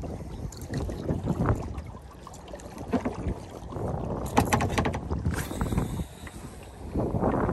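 Water lapping and splashing around a kayak, with a few light knocks near the middle and wind rumbling on the microphone.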